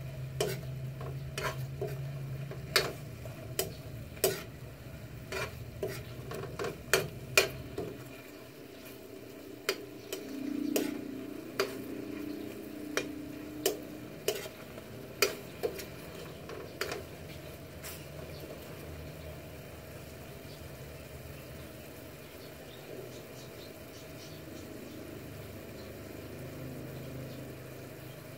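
Chicken adobo's soy-and-vinegar sauce sizzling and bubbling as it reduces down in a frying pan, with sharp irregular pops and spits from the thickening sauce, most frequent in the first half and thinning out later.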